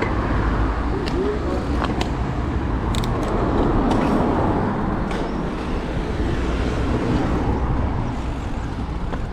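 Steady road and wind noise with a heavy low rumble, swelling about four seconds in, with a few short clicks.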